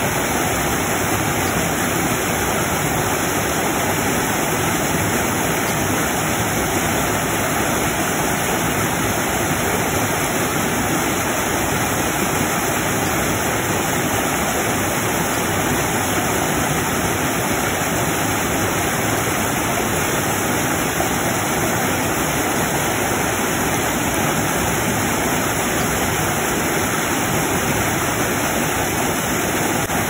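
Small rocky-creek waterfall, white water pouring over and around boulders in a steady, unbroken rush.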